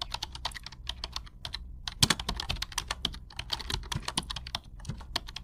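Keyboard typing: quick, uneven key clicks, several a second, with one louder keystroke about two seconds in.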